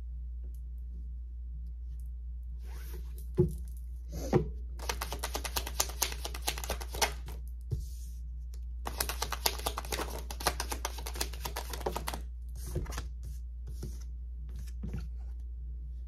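A deck of tarot cards being shuffled by hand: a couple of knocks as the deck is handled, then two runs of rapid card clatter, each a few seconds long, over a steady low hum.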